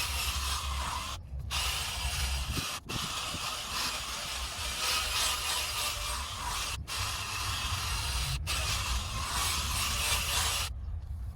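Power drill spinning a sanding disc against a plastic headlight lens: a steady hissing rasp over the motor's hum, broken by a few brief pauses and stopping near the end.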